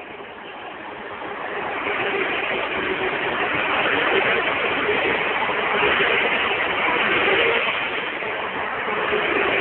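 A convoy of Toyota Land Cruiser 70 Series trucks driving past, a steady rush of engine and tyre noise that swells over the first two seconds and dips briefly near the end.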